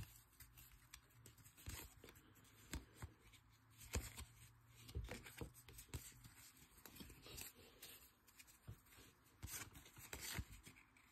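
Faint, irregular soft clicks and slides of paper baseball trading cards being flipped one at a time off a stack held in the hand.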